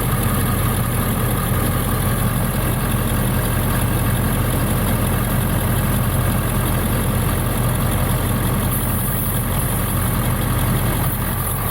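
Ford 7.3 Powerstroke turbo V8 diesel idling steadily.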